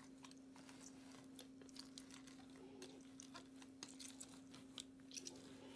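Near silence with faint, scattered light clicks and taps as lemons are halved with a knife on a wooden cutting board and squeezed in a metal hand-held lemon press, over a low steady hum.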